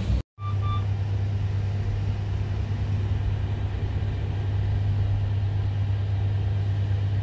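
Steady low machine hum with an even background rush in a crowded hospital lift, after a brief dropout. A short single-pitched electronic beep sounds just under a second in.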